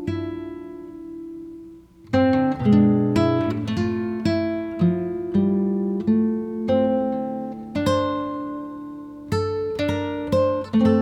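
Background music on acoustic guitar: a chord rings and fades, then plucked notes and strummed chords resume about two seconds in.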